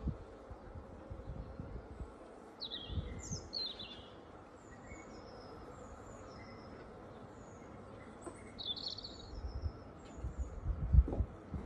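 Small garden birds singing: scattered short high chirps, with louder song phrases about three seconds and nine seconds in. Low rumbles rise near the end.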